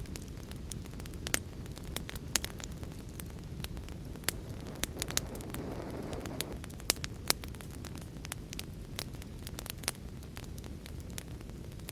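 Wood fire crackling: irregular sharp pops and snaps over a steady low noise of the flames, with a brief low rushing swell about halfway through.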